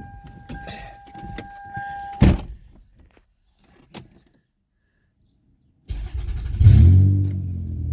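A steady warning tone sounds and is cut off by a thump about two seconds in. About six seconds in, the Toyota 1MZ-FE 3.0-litre V6 cranks, catches with a brief flare of revs and settles into a steady idle: its first start on fresh oil after an oil change.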